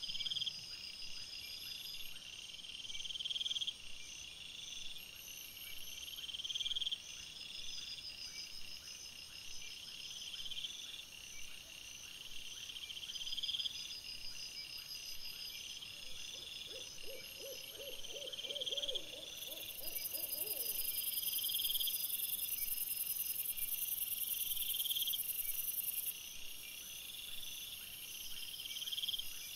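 Crickets chirping steadily in regular high-pitched bursts, over a fainter continuous insect trill. About seventeen seconds in, a quick run of low rapid pulses lasts around four seconds.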